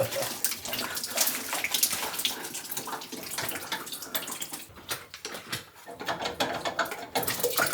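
Water pouring and splashing into a bucket as it drains out of opened plumbing pipework, running on without stopping.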